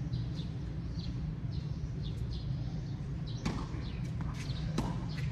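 Two sharp knocks about a second and a half apart, past the middle, typical of a tennis ball being struck by a racket or bouncing on the court during a rally. Under them run a steady low rumble and repeated short high chirps.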